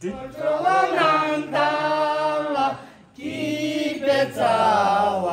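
Voices singing a slow song together with long held notes, breaking off briefly about three seconds in before the singing resumes.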